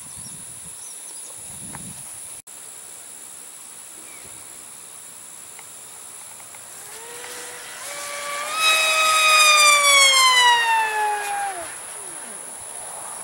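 Electric motor and propeller of a 6-cell foamboard RC speed plane whining past overhead. The whine climbs in pitch and grows loud about eight seconds in, then falls in pitch and fades as the plane passes. Under it is a steady high-pitched insect drone.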